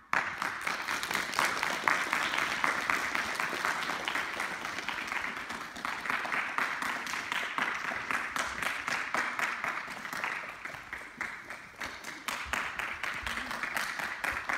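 Applause: many hands clapping together, with some voices mixed in.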